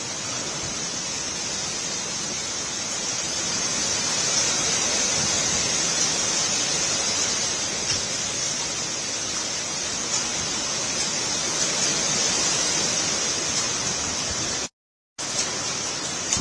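Heavy rain pouring down, a steady dense hiss. It cuts out for about half a second near the end, then resumes.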